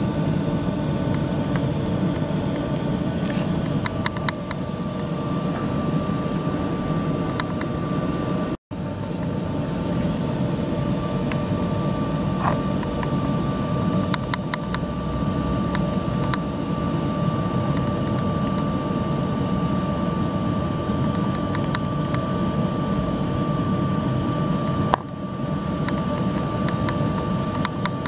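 Steady drone of running machinery with a faint high whine in it, broken by a brief gap about eight and a half seconds in, with a few light clicks over it.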